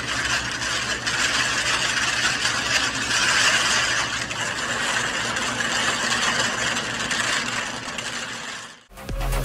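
The many small servo motors and wooden tiles of a kinetic wooden-tile mirror, tilting together to form the image of the person in front of it: a dense, steady whirring clatter that dies away near the end.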